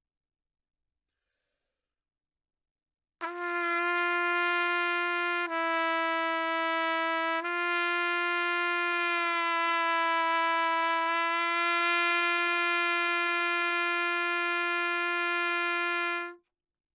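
Trumpet playing one long held note in a note-bending exercise, starting about three seconds in. The pitch drops sharply a couple of seconds later and returns, then is bent slowly down and back up before the note stops.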